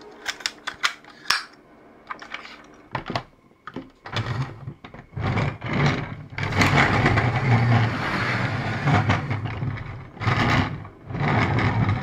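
Hard plastic toy parts clicking several times as they are moved and snapped into place. Then the plastic wheels of a toy transforming car whir and rumble on a hard tabletop as the car is pushed back and forth in several runs.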